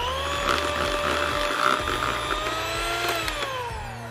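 Electric hand mixer running with its beaters in a bowl of cake batter: a steady motor whine that steps up in pitch as it starts, then winds down near the end.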